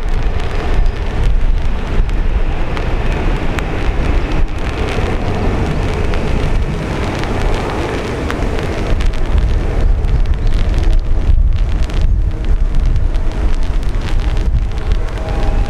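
Boeing 767-300 jet engines at climb power as the airliner pulls away after takeoff: a steady low rumble, mixed with wind buffeting the microphone. A few faint steady whining tones come in near the end.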